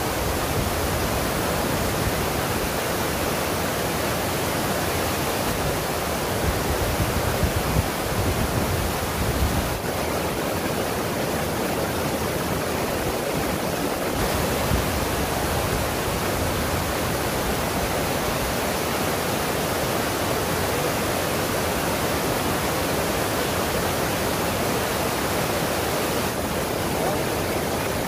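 Steady rushing of a waterfall, water pouring over the falls without a break. There is some brief low buffeting about six to ten seconds in.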